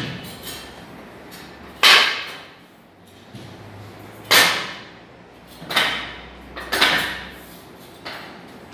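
Four sharp, irregularly spaced knocks as sofa parts are assembled, each with a short echoing tail.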